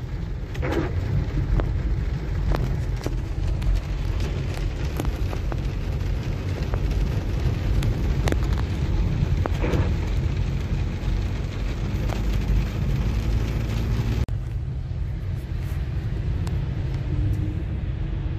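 Heavy rain drumming on a car's windshield and roof, heard inside the cabin. It is a steady hiss full of sharp drop ticks over the low rumble of the moving car. About fourteen seconds in, the hiss and ticking ease while the car's rumble goes on.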